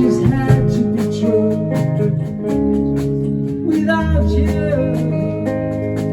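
Live rock band playing an instrumental passage: guitars and bass over a steady drum beat.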